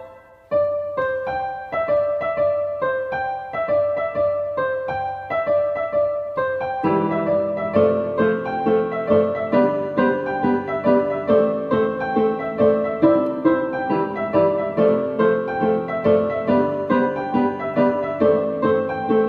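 Instrumental break in a song: a piano-like keyboard plays a run of single notes. About seven seconds in, lower notes join and the playing grows fuller, with steadily repeated notes.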